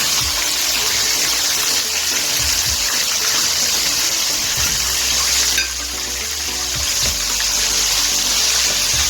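Hot oil in a deep-frying pan sizzling steadily, dipping briefly a little past the middle and then building back.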